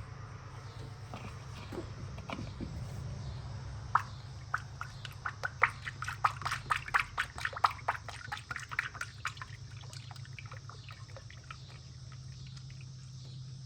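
0W-20 motor oil glugging out of a jug into the truck engine's oil filler: a quick, irregular run of gulps starting about four seconds in and thinning out a few seconds later.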